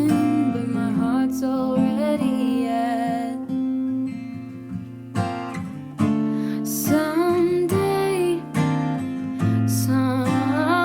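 Acoustic guitar song, strummed and plucked, with a singing voice over it.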